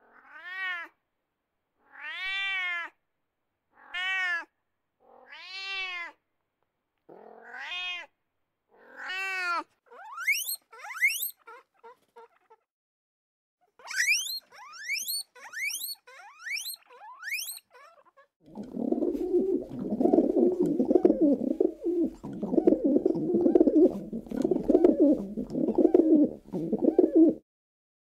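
A fishing cat gives six long, drawn-out meows, about one every second and a half. Then come quick runs of high, rising squeaks, typical of a guinea pig's wheeking. From about two-thirds of the way in there is a loud, rough, pulsing low rumble lasting about nine seconds.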